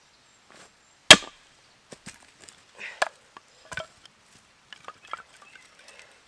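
Very seasoned wood being split into small pieces: one loud, sharp chop about a second in, followed by several lighter knocks and cracks of the wood.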